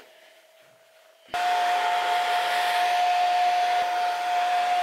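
A handheld hair dryer switches on about a second in and then runs steadily, a rush of air with a steady whine over it, blowing on a puppy's fur that is wet from its bath.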